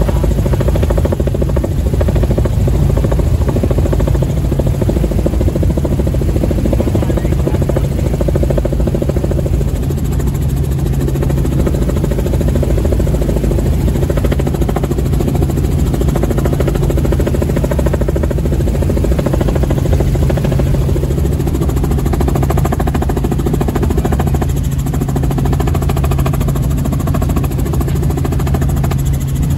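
Helicopter in flight heard from inside the cabin: a loud, steady drone of engine and rotor with a strong low hum.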